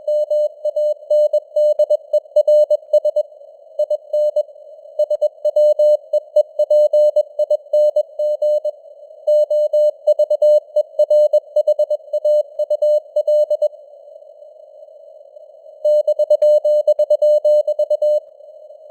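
Morse code (CW) sent at 21 words per minute: a single steady mid-pitched tone keyed on and off in dots and dashes, over a band of hiss like a radio receiver's noise. About three-quarters of the way in the keying stops for about two seconds, leaving only the hiss, then resumes.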